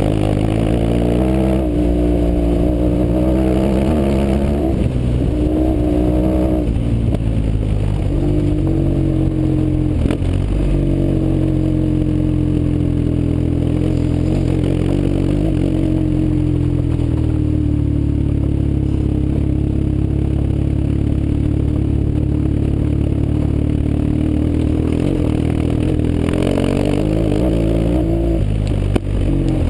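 BMW R 1150 GS boxer-twin engine running through an aftermarket Fresco exhaust on the move, its pitch rising and falling with the throttle several times in the first ten seconds, then holding steadier. A single sharp knock near the end.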